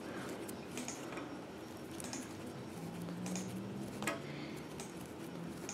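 Faint, irregular ticks and soft rustling from hands working yarn into chain stitches with a metal crochet hook.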